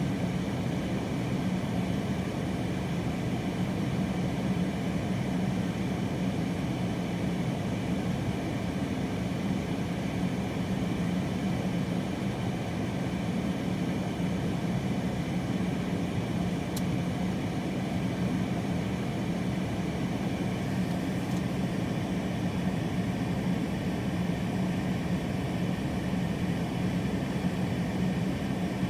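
Strong wind blowing steadily, an even rushing noise with a low rumble that holds constant throughout.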